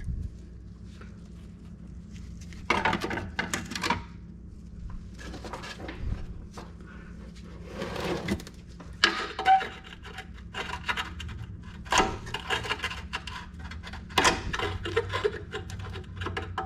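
Tools and metal parts clinking and rattling during hand work on a car's front brake assembly, in irregular bursts of short clicks and clatters.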